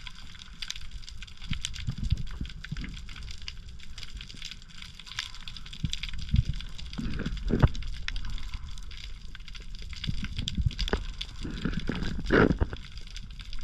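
Underwater sound picked up by an action camera in its housing while the diver swims: a constant crackle of fine clicks over a low water rumble. A few louder knocks and swishes come from the diver's movements, the loudest near the end.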